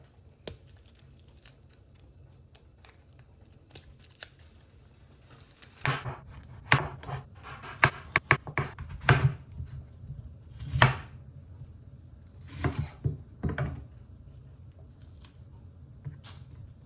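A run of irregular short clicks, snips and rustles of hands handling objects, mostly in the middle, with quieter stretches before and after.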